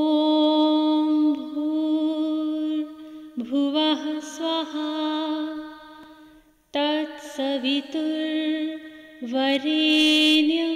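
A single voice chanting a mantra in long held notes. Each new phrase slides briefly onto its pitch, with short breaks about three and a half and seven seconds in.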